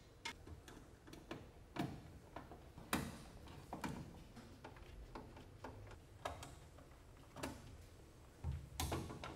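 Faint, irregular metal clicks and light knocks: a disconnect switch box and its #10-32 screws and nuts being fitted by hand against a steel fan motor side plate, with a few louder knocks near three seconds in and near the end.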